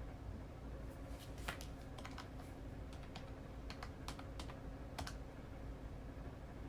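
Keys being pressed: about a dozen quick, irregular taps over some four seconds, like typing or tapping out figures, over a faint steady hum.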